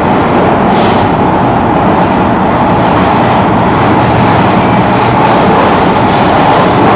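Singapore MRT train running at speed through a tunnel, heard from inside the carriage: a loud, steady noise of wheels on rail and the running gear, with a low steady hum underneath.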